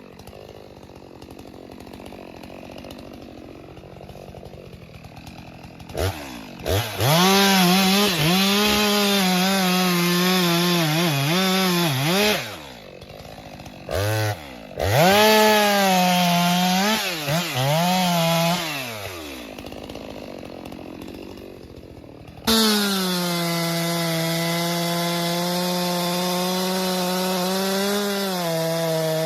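Two-stroke STIHL chainsaw cutting into a thick tree trunk. At first it runs low. About six seconds in it revs up, and its pitch sags and recovers again and again as the chain loads up in the cut, with a couple of brief let-offs. Near the end it suddenly settles into a steady high-revving run.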